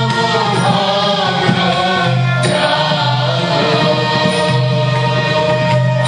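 A group of men and women singing together into microphones, with long held notes over a steady low accompaniment.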